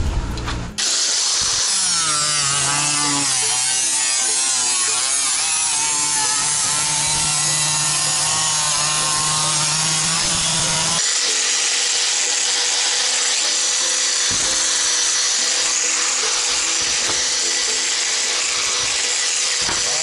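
Power tool cutting a stainless steel sheet: a steady, loud whine with a high hiss, its pitch wavering in the first few seconds and its tone changing about halfway through.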